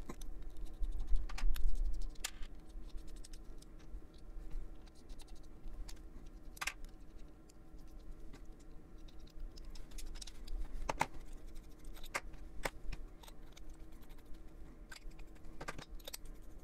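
Hands handling and swapping Jinhao 100 Centennial fountain pen parts: light, scattered clicks and taps as the acrylic barrels, sections and finials are unscrewed and fitted back together, with a louder handling bump against the microphone about a second in.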